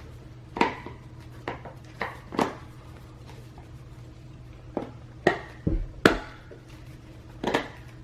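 Plastic tabs of a steering-wheel airbag cover clicking and snapping as the cover piece is pressed into its clips: a string of sharp clicks and knocks, with one duller thump around the middle.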